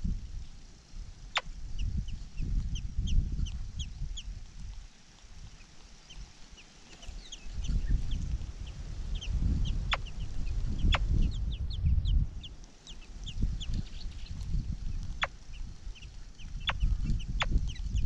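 Chinese blackbird nestlings begging at the nest while being fed: a stream of short, thin, high-pitched chirps, several a second, over an uneven low rumble, with a few sharp clicks scattered through.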